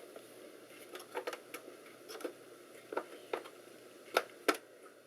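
A series of sharp plastic-and-metal clicks and taps from a RAM module being handled and fitted into a desktop motherboard, the two loudest clicks coming close together about four seconds in.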